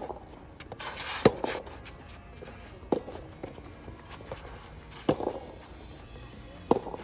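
Soft tennis rally: rackets strike the rubber ball four times, roughly every two seconds, the second hit the loudest, with shoes scuffing on the court.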